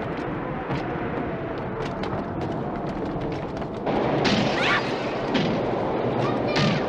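Tornado wind blowing hard, a dense rushing noise with rattling debris, growing louder about four seconds in, with a high wavering sound over it.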